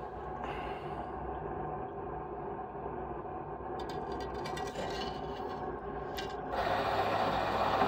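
Steady rushing hum from a solid-fuel boiler's firebox, with a few short scraping rubs in the middle. About six and a half seconds in it grows louder and a low steady hum joins.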